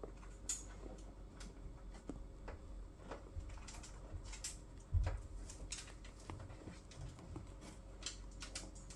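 Two kittens tussling on cloth: scattered soft rustles and small clicks, irregular and faint, from their paws and bodies moving on the fabric. A dull thump about five seconds in is the loudest sound.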